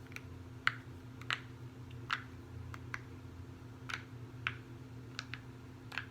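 Irregular light clicks and taps, about two a second, from small toys and keychains being handled, over a steady low hum.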